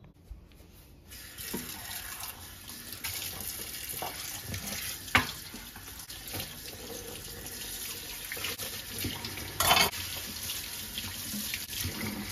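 Kitchen tap running into the sink, starting about a second in, with a few sharp knocks and clatters over the water.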